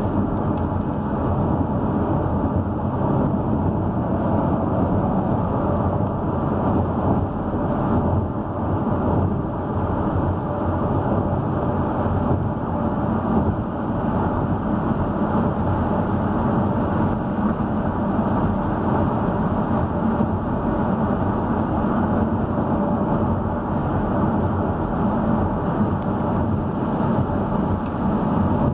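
Steady road noise inside a car cruising at highway speed: tyres and engine making an even, low rumble.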